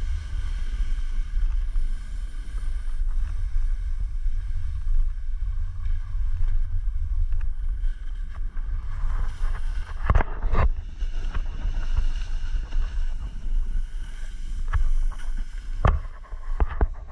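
Wind rumbling on the camera microphone during a ski run, over the hiss of skis on snow, with a few sharp knocks about ten seconds in and again near the end.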